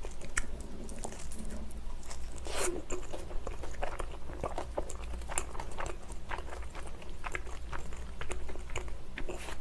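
Close-miked chewing of a mouthful of cheese and steak pizza: many small, irregular wet clicks and smacks of the mouth, with a faint steady low hum under them.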